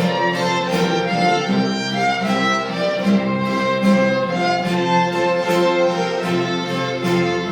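Background music: strings, violin-led, playing a slow melody over sustained chords with a light steady beat.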